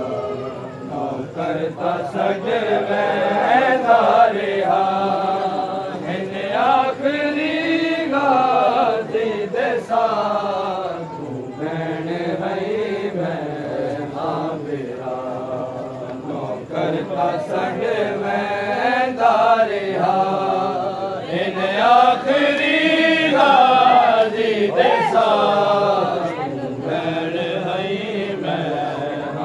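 A group of men chanting a Muharram noha (lament) together, in long melodic lines that swell and fall.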